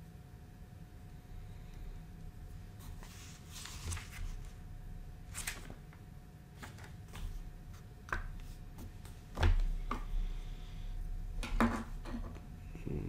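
Plastic Lego bricks being handled and snapped together: scattered light clicks and brief rustles, the loudest a cluster of knocks about two-thirds of the way through and a sharp double click soon after.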